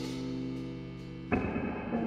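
Live instrumental rock band of guitar, bass, organ and drums in a quiet passage: a held chord rings and slowly fades, then a little over a second in a sharper new note cuts in.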